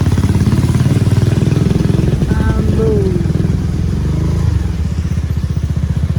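Motorcycle engine running at low revs, a steady rapid pulsing, as the bike rides slowly over a slippery landslide-damaged road. The engine eases off a little about four and a half seconds in, and a short falling tone sounds near the middle.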